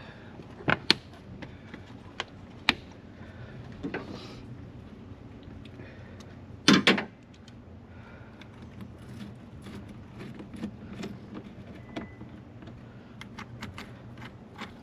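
Clicks, taps and knocks of hand tools and plastic engine-cover parts being handled and fitted, with one louder clatter about halfway through and a run of small ticks near the end.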